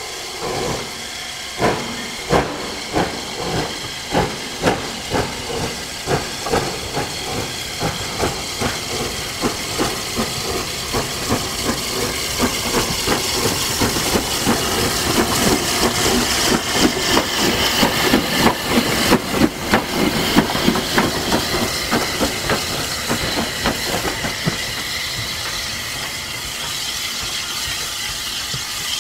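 Southern Railway S15 class two-cylinder 4-6-0 steam locomotive No 847 working under steam, its exhaust chuffing in a steady rhythm that quickens as it draws near. The beats are loudest as it passes, then die away into a steady hiss as it goes off.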